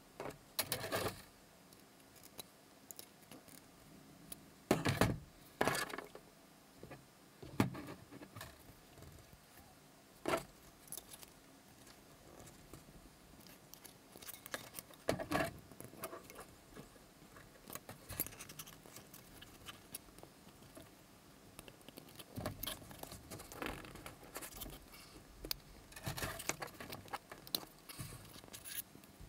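Thin steel wire and a slim metal rod clicking and scraping together as the wire is bent around the rod to form an eye on a wine-cork popper lure. Irregular small metallic clicks and scrapes, with a few louder knocks about five to six seconds in and a busier stretch near the end.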